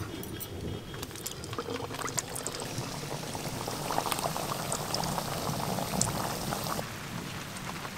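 Kachuris deep-frying in a wok of oil, the oil bubbling and crackling steadily around the dough as more are slid in.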